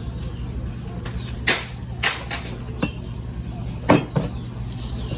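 Sharp clinks and knocks of a bar jigger and glassware while lime juice is measured and added to a Collins glass of ice: about seven in a loose cluster, the loudest near the four-second mark, over a steady low hum.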